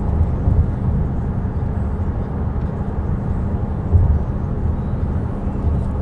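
Steady low rumble of road and engine noise inside a car, with a brief thump about four seconds in.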